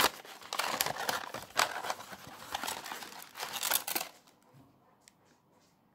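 Printed gift paper crinkling and rustling in irregular handfuls as a small present is unwrapped by hand. The rustling dies away after about four seconds, leaving a faint click or two.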